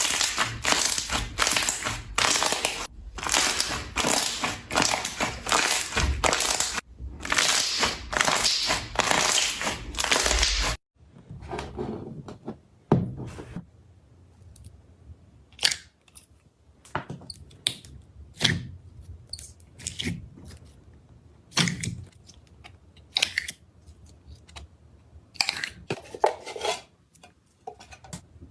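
Slime being squeezed and kneaded by hand, giving dense, continuous squishing noise broken by a couple of short cuts. About eleven seconds in it drops to softer, scattered pokes, pops and squelches.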